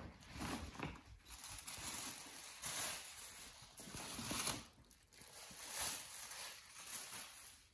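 Tissue paper rustling and crinkling as it is pulled out of a gift bag, in several uneven bursts.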